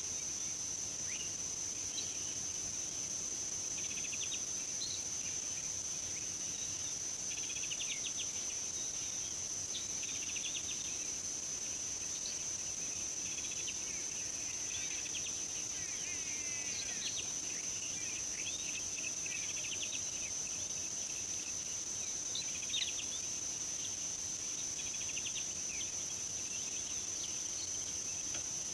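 Steady high-pitched insect chorus, cricket- or cicada-like, with scattered short bird chirps and twitters over it.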